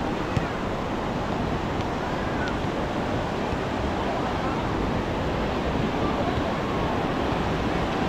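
Steady wash of sea surf on a sandy beach, with faint voices of people in the background.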